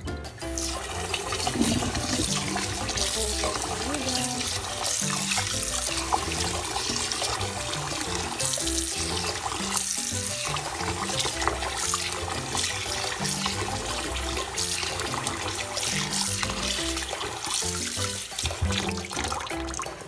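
Tap water running into a stainless steel bowl in a steel sink while glutinous rice is swished by hand to rinse it, a steady hiss of water. Background music plays along with it.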